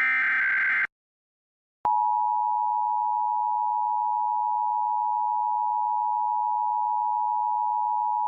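Emergency Alert System SAME header: a burst of screechy digital data tones that stops just under a second in. After a pause of about a second, the EAS two-tone attention signal comes on and holds steady, announcing the alert message that follows.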